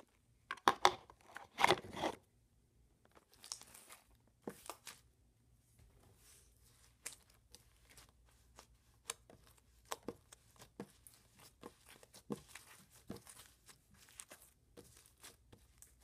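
Clear slime being kneaded and mixed with sand: irregular sticky crackles and crunchy snaps, loudest in a cluster in the first two seconds.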